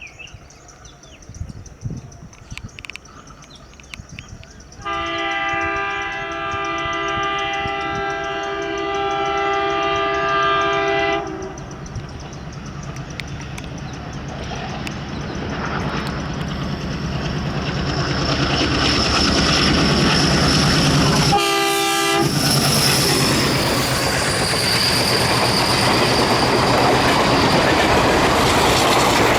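WDG-3A ALCO diesel locomotive approaching with its engine chugging, then sounding a long horn blast of about six seconds, about five seconds in. A short second horn blast comes about three-quarters of the way through as the train gets louder and runs past at speed, its wheels and coaches clattering over the rails.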